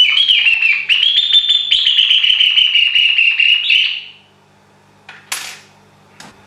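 Hand-blown bird call (appeau) imitating the song of a song thrush: a high, warbling whistle broken into quick chirps and trills, which stops about four seconds in. A short breathy hiss follows about a second later.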